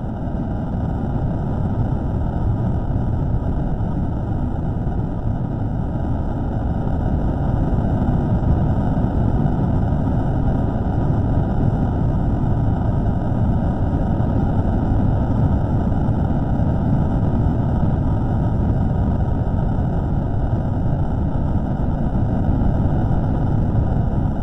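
Slowed-down microphone recording of a steady low rumbling noise, with no clear tone, rhythm or separate events, presented as an unexplained signal.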